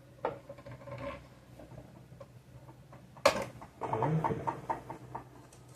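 Small metal parts and tools being handled on a sewing machine under repair: a few light clicks, one sharp click about three seconds in, then a second or so of quick light clattering.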